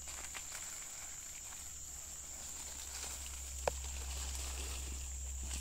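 Insects chirring steadily at one high pitch, with faint crackles of leaves and one sharp click about three and a half seconds in.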